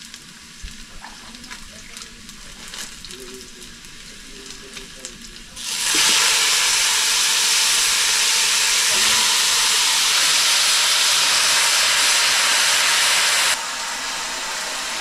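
Chicken pieces going into hot oil in a cooking pot: after a few quiet seconds with small clicks, a loud, steady sizzle starts suddenly about six seconds in, then drops to a lower sizzle near the end as the meat begins to brown.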